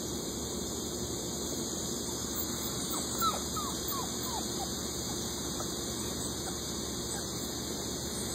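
Steady hiss, with a quick run of about six short squeaks from an animal about three seconds in, each sliding down in pitch, the first the loudest.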